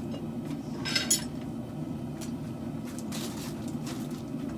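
A few light metallic clinks of steel forging tongs handling the work, two close together about a second in and fainter ones later, over a steady low hum.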